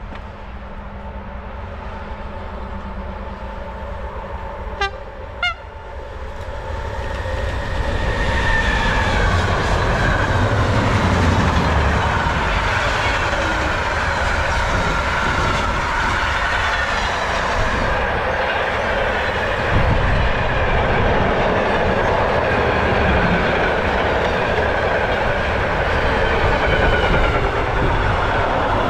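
A train approaches and sounds two short horn toots about five seconds in, then passes close by with loud, steady rumbling and rail noise.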